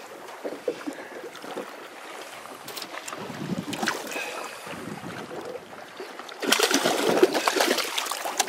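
Wind on the microphone and lapping water, then, from about three-quarters of the way in, louder splashing as a hooked false albacore splashes at the surface right beside the boat.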